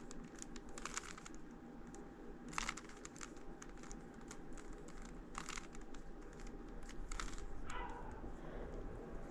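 Plastic Rubik's Cube being turned by hand, its layers clicking and rattling in short irregular bursts.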